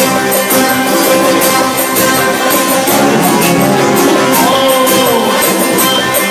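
Instrumental passage of a manele song: a melody with sliding notes over a steady percussion beat.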